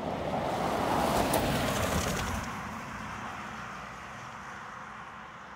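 A car driving past on the road, its engine and tyre noise swelling for about two seconds, then fading away.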